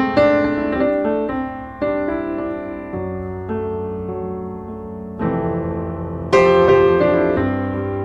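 Background piano music: notes and chords struck and left to fade, with a louder chord near the end.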